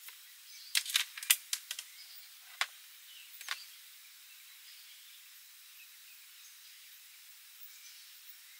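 Kitchen knife cutting strawberries on a wooden cutting board: a string of about eight sharp clicks and taps over the first few seconds, then only a faint outdoor background hiss.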